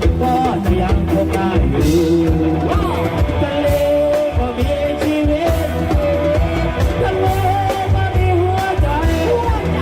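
Loud amplified live band music from a Thai parade sound truck: a singer's held, wavering melody over electric instruments, with a heavy, steady bass and drum beat.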